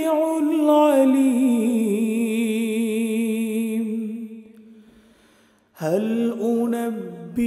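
A man reciting the Quran solo in a melodic style. He draws out the closing word "al-'alim" of a verse as a long held, wavering note that fades away, and after a brief pause he begins the next verse, "hal unabbi'ukum".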